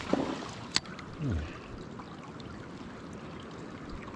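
River water running steadily, with a sharp click a little under a second in and a short low sound falling in pitch just after a second.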